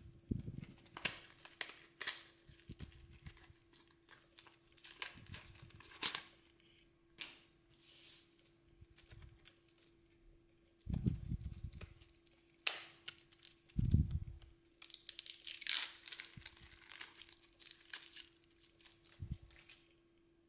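A microSD card's retail package being torn open by hand: irregular tearing and crinkling of the card backing and clear plastic blister. Two dull thumps come about eleven and fourteen seconds in, and the crinkling grows dense around sixteen seconds.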